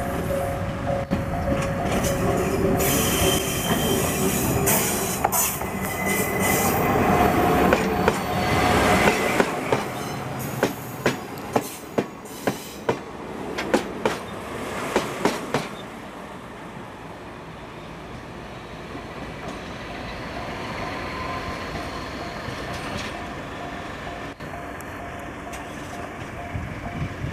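A JR Kyushu DE10 diesel-hydraulic locomotive runs close by under power as it pulls away, with a loud engine rumble for about the first nine seconds. About ten seconds in, the wheels of the passing train give a series of sharp clicks over the rail joints. After about sixteen seconds this fades to a quieter, steady rumble.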